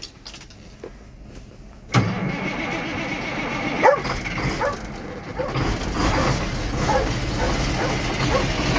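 Semi truck's diesel engine starting abruptly about two seconds in, then running steadily at idle.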